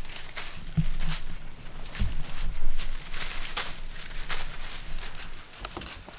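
Whitetail deer walking through dry leaves, an uneven run of crunching hoof steps, with a few low thumps about one and two seconds in.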